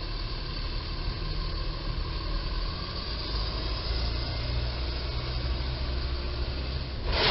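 Low engine rumble of road traffic, chiefly a box truck pulling through an intersection, over a steady hiss.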